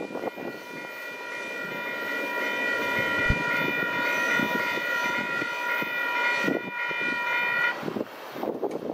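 Diesel freight locomotive's air horn sounding one long blast of several notes held together as a chord, for about seven seconds and cutting off sharply, over the rumble of the passing freight train.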